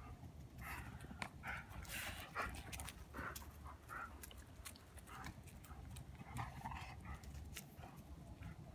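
Dogs panting as they play, with scattered short scuffs and crunches of paws on wood chips.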